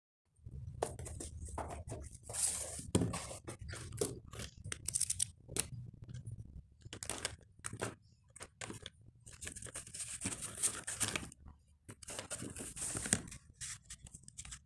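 Hands rummaging through a cardboard box of stationery and handling a packet of oil pastels: irregular rustling and crinkling of packaging with small clicks and knocks, over a faint low hum.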